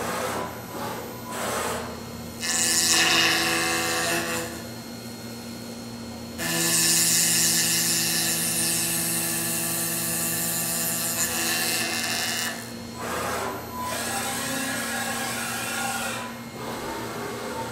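Five-axis CNC milling machine's spindle running with its cutter milling a laminated katsura wood block: a steady spindle whine under a high-pitched cutting noise that comes and goes in passes, loudest about 2.5 to 4 seconds in and again from about 6.5 to 12 seconds in.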